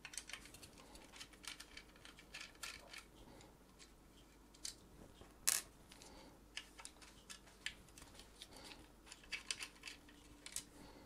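Small screwdriver unscrewing tiny screws from a graphics card's fan shroud: faint, scattered clicks and light scrapes of the bit in the screw heads, with one sharper click a little past halfway.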